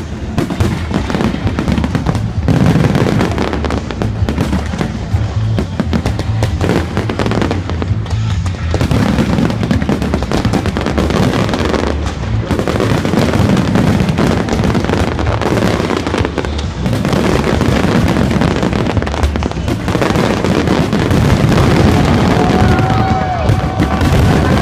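Fireworks finale: dense, continuous explosions and crackling shells going off without a break, with music playing underneath.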